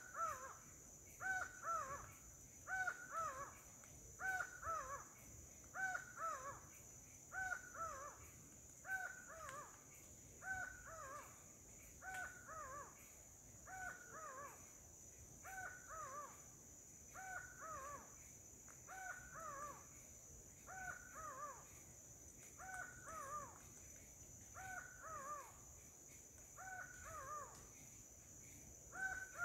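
A bird calling over and over in forest, each call a quick cluster of two or three downward-bending notes, repeated evenly about every one and a half seconds.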